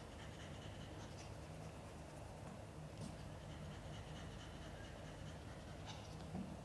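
Faint, quick open-mouthed panting of a mother cat in labour, with a few light clicks about three and six seconds in.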